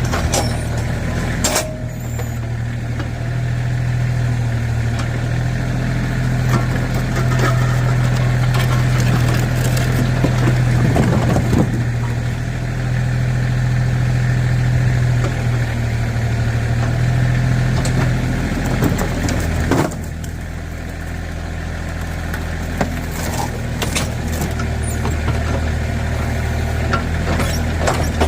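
Backhoe engine running steadily, with a drop in its level about two-thirds of the way through, and scattered clanks and knocks from the machine at work.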